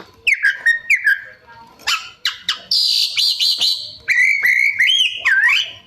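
Oriental magpie-robin (kacer) singing a fast, varied song of sharp chips, slurred whistles and a harsh buzzy stretch in the middle. The mix of phrases is the 'isian', other birds' calls worked into its song.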